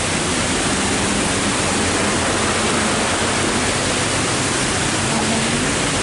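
Steady rush of flowing water from a small stream, an even hiss with no breaks.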